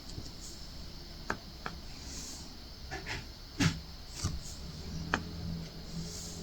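A handful of light, scattered clicks and taps, the loudest about halfway through: diamond painting drills being picked up and pressed onto a hard acrylic ornament with a drill pen.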